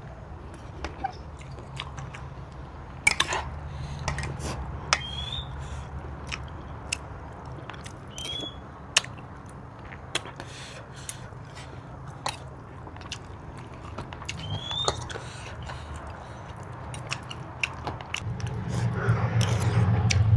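Close-up eating sounds of a spicy seafood papaya salad with fish roe and shrimp: chewing with scattered sharp mouth clicks and smacks.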